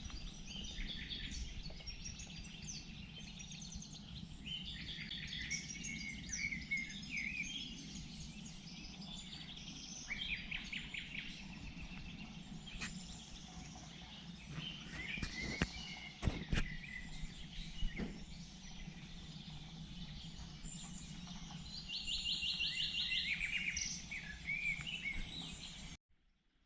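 Several songbirds singing and chirping in overlapping phrases over a steady low background rumble, with a fast buzzy trill near the end. A few sharp clicks come in the middle, and the sound cuts off suddenly near the end.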